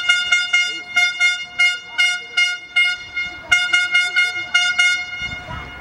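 A horn sounding in quick repeated toots, about three a second, with a short pause near the middle, stopping shortly before the end.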